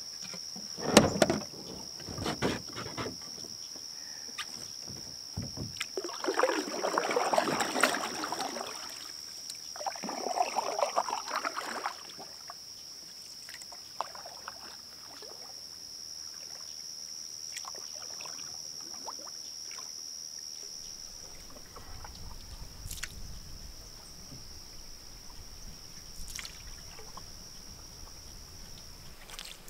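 Knocks against a Nova Craft canoe's hull as the paddler boards it, then two spells of water sloshing and splashing as the canoe pushes off and the paddle strokes begin. A steady high-pitched tone runs underneath until near the end.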